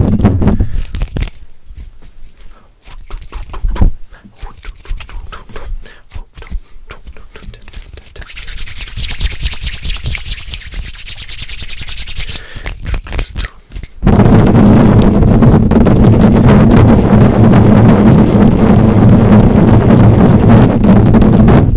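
Close-miked ASMR microphone triggers: fast crackly scratching and tapping on the microphone, then a brighter bristly brushing hiss from about eight seconds in. About fourteen seconds in it turns abruptly into loud, dense rubbing right on the microphone.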